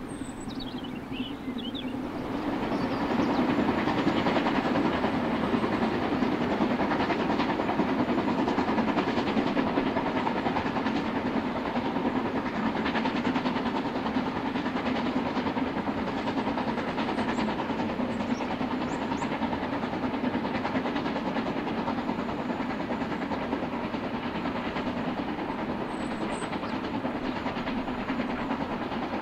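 Narrow-gauge steam locomotive working a train, its exhaust a steady dense rush that swells about two seconds in, holds, and eases slightly in the second half.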